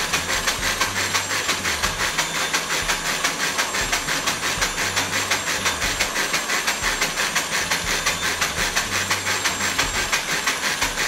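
KitchenAid tilt-head stand mixer running at a steady speed, its wire whisk beating egg yolks in a glass bowl: a constant motor hum and whirr with a fast, even pulse as the whisk goes round. This is the stage of beating the yolks until they turn pale and thick.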